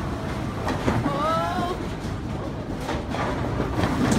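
Bowling balls rolling down wooden lanes with a low steady rumble, and pins clattering as a ball hits them near the end. A brief wavering voice is heard about a second in.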